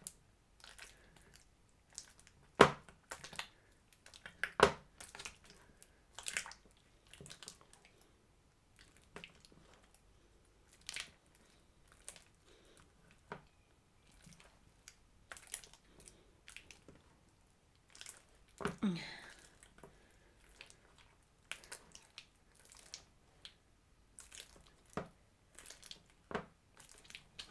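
Sticky homemade slime, a mix of old slimes, being kneaded and stretched by hand: irregular wet clicks, pops and squelches, the loudest a few seconds in.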